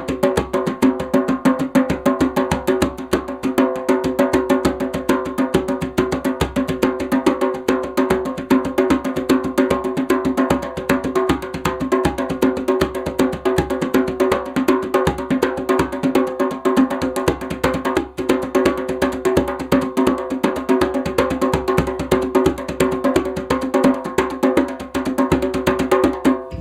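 African drum played in a fast, steady rhythm of many strokes a second, stopping right at the end.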